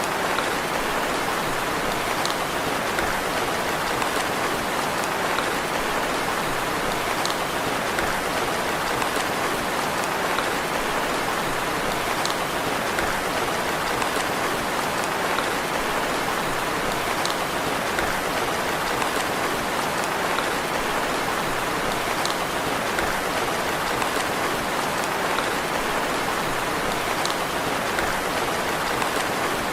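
Steady rain falling, an even patter with faint individual drop ticks scattered through it.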